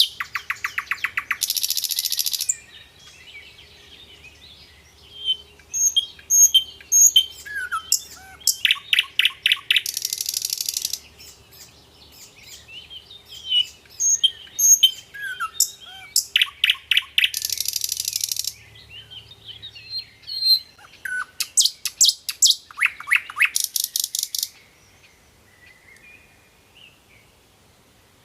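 Birds chirping, with four rapid buzzy trills of about two seconds each broken up by short high chirps and whistles; the calls fall away for the last few seconds.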